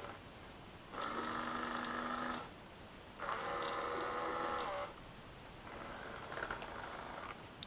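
Small animation motor and gears inside a novelty animated alarm clock whirring in two bursts of about a second and a half each, with a fainter whir near the end.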